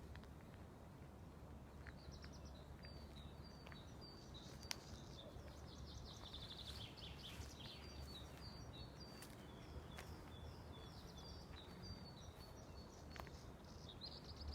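Faint birdsong: small birds repeating high chirps and trills over a low steady background noise, with a few faint clicks.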